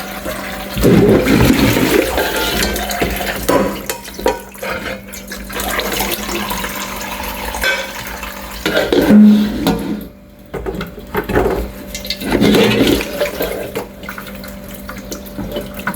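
Water running and splashing in uneven surges while dishes are washed.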